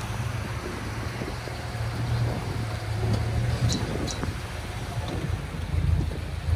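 A car engine running with a steady low rumble, with two short high clicks a little past halfway.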